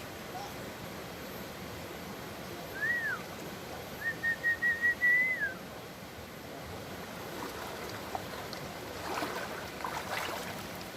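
Steady rushing of river water, with two high whistled notes over it. The first, about three seconds in, is short and rises then falls. The second, about a second later, is a longer warbling note that dips away at its end.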